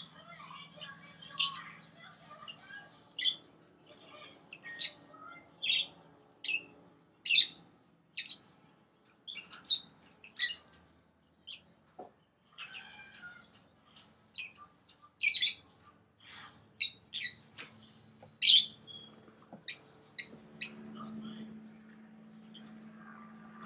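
Small pet parrots calling in short, sharp chirps, about one or two a second.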